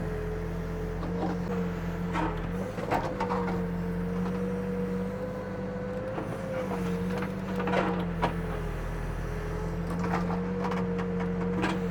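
Backhoe engine running steadily under load, its pitch wavering slightly as the bucket mixes wet dirt, with scattered knocks and clanks.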